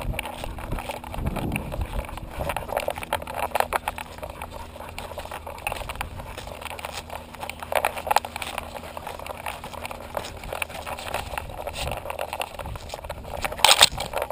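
A dog's paws padding and scrabbling up a dry, dusty dirt trail, heard close from a camera strapped to its harness, with irregular scuffs and rig rattle. Near the end, a loud brief crackle as leafy branches brush across the camera.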